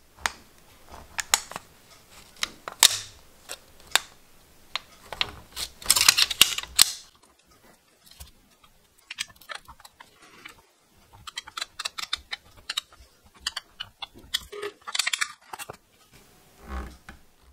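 Ballpoint pen tip pressing and scraping letters into thin aluminium sheet cut from a drink can, resting on a plastic cutting board: irregular scratches and clicks, with a louder rustle of the thin metal about six seconds in.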